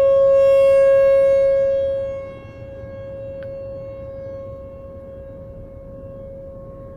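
Rotating outdoor tornado siren sounding a steady, unwavering tone with strong overtones during its test. It is loud for about two seconds, then drops sharply in level and carries on more quietly as the rotating horn turns away.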